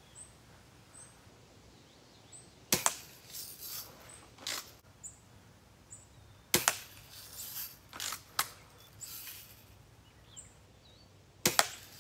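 BB gun shooting: three sharp shots about four seconds apart, each followed by a few quieter clicks and knocks.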